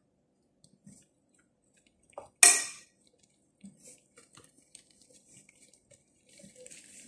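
Kitchenware knocking together during hand food preparation: one sharp clink with a short ring about two and a half seconds in, just after a smaller click, and faint small clicks and rustles the rest of the time.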